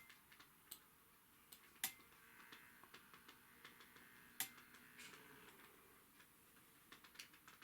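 Near silence: room tone with scattered faint sharp clicks at irregular intervals, and a faint high hum from about two seconds in that fades out about three seconds later.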